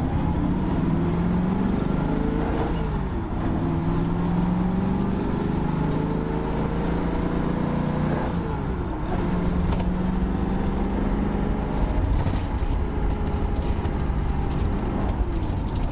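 1978 Ford Mustang II King Cobra's engine heard from inside the cabin, pulling through the gears of its four-speed manual. The engine note rises, drops at a shift about two and a half seconds in, rises again, drops at another shift about eight and a half seconds in, then holds nearly steady over road rumble.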